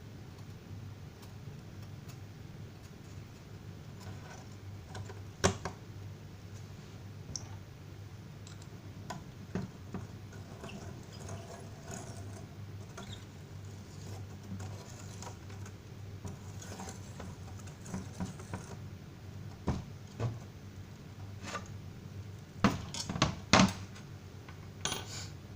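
Scattered light clicks and metal clinks of hands working on an electric heater's element and fittings, with a cluster of louder clicks near the end, over a steady low hum.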